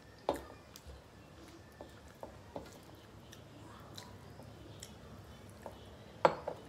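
Eating by hand from metal plates: chewing and the soft squish of rice being mixed with the fingers, with a few sharp metallic clinks. The loudest clink comes near the end.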